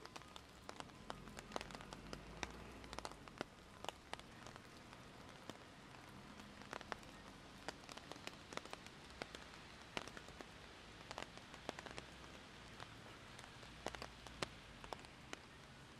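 Steady rain: an even hiss with many sharp, irregular drop impacts close by.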